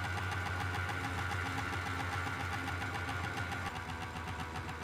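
A motor running steadily with a low hum and a fast, even rattling pulse; a higher tone in it drops away about three-quarters of the way through and the sound gets slightly quieter.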